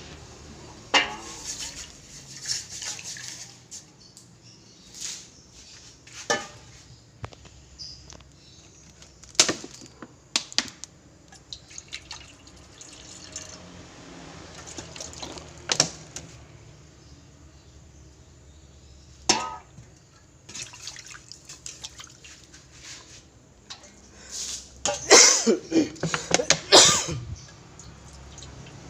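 Kitchen sounds of water being poured and splashing, with scattered knocks and clinks of utensils. A busier run of clattering and splashing comes near the end.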